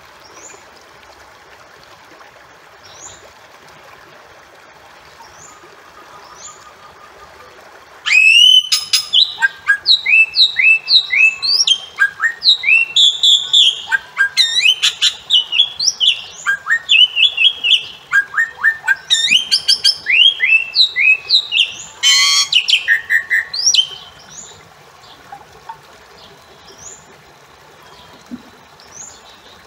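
Bali myna calling. About eight seconds in, a loud run of quick, rising whistled notes begins after a few faint chirps. A harsh squawk comes about twenty-two seconds in, and the calling stops about two seconds later, leaving only faint chirps.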